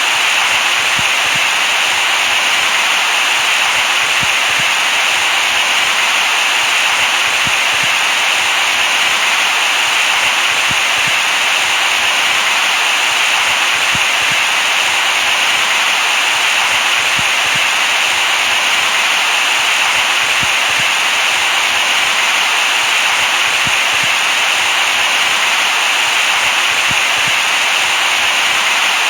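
Steady white-noise hiss, even and unchanging, brightest in the upper-middle range with little bass.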